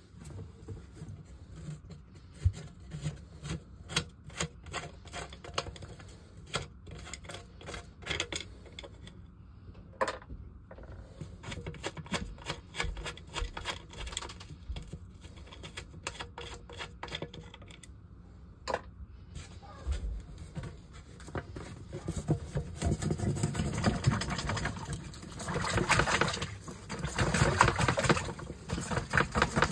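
Hand-work noises at a sump pit lid: scattered clicks and knocks as the PVC discharge pipe, power cord and lid are handled. In the last several seconds this turns to a louder, rapid rasping scrape as the PVC pipe is worked up out of the lid.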